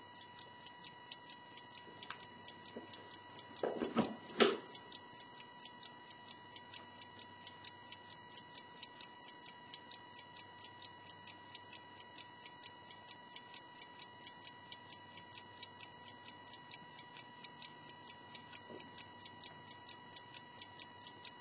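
Small antique brass clock ticking steadily, several quick ticks a second, over a steady high-pitched hum. About four seconds in, a couple of louder knocks.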